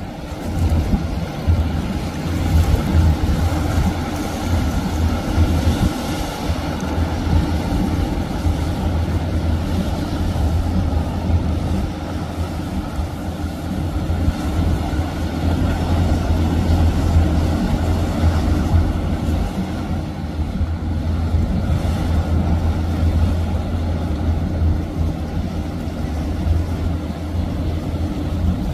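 Azimut motor yacht's inboard diesel engines running in a steady low drone as it cruises past, with the rush of its bow wave and wake over it.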